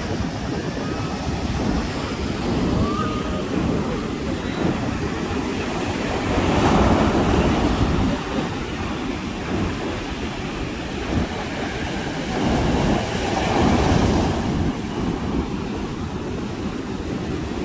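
Sea waves breaking and washing onto a sandy beach in a continuous rush of surf. Two waves come in louder, about seven and about thirteen seconds in.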